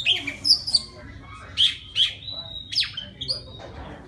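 Oriental magpie-robin singing its song to call a female: a run of clear whistled notes and sharp calls that fall steeply in pitch, with a short held whistle about halfway through.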